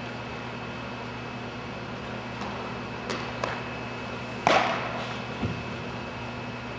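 Steady hum of the building's ventilation, with a couple of faint clicks and, about four and a half seconds in, a single sharp pop of a thrown baseball smacking into a glove, followed by a softer low thump a second later.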